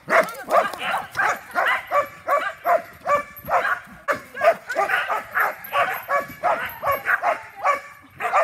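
A dog yipping and barking over and over, about two to three yips a second.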